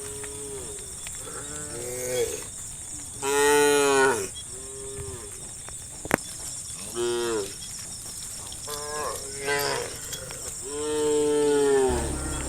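Cattle in a herd mooing: a string of about seven moos, the loudest about three seconds in and again near the end. A single sharp click comes about six seconds in.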